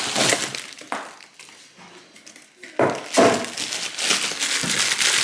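Packaging being handled and opened, rustling and crinkling, with a quieter pause about a second in before the rustling picks up again near three seconds.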